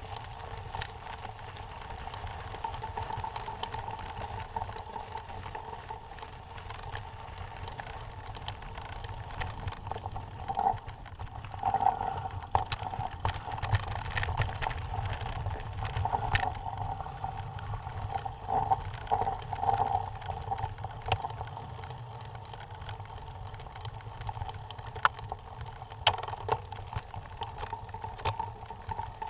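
Mountain bike ridden over a rocky gravel trail: a steady rumble of tyres on loose stones with a constant buzz, broken by frequent sharp rattles and knocks from the bike.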